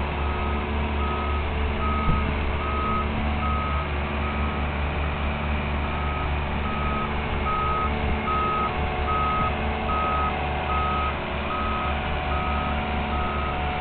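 Marine travel lift's diesel engine running steadily under its motion warning alarm, a single-pitch beep repeating just under twice a second, with a brief pause about five seconds in.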